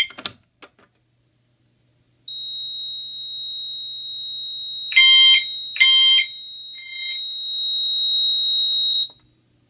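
A pull station snaps as it is pulled down. A couple of seconds later a steady high-pitched tone from the fire alarm panel's sounder starts and grows louder. The Pyrotronics MTL MultiTone horn, set as a single-stroke chime, strikes twice in quick succession, the two-pulse code for zone 2 in alarm, with a fainter third stroke after it.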